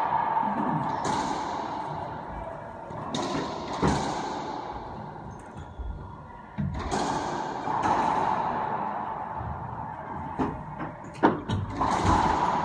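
Racquetball rally sounds in an enclosed court: sharp cracks of the ball striking racquet and walls, about half a dozen spread irregularly, each with a long echo dying away; the sharpest come near the end.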